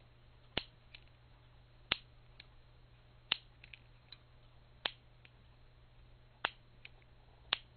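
Piezoelectric igniter button from an electronic butane lighter, fitted in a homemade plastic-rod igniter, clicked six times, about one press every second and a half. Each press gives a sharp snap, several of them followed by a fainter click.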